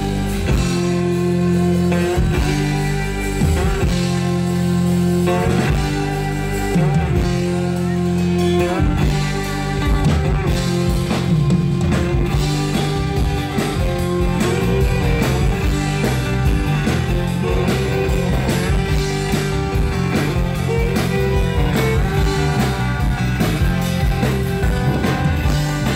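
Live country-rock band playing an instrumental passage: fiddle and strummed acoustic guitars over bass and drums.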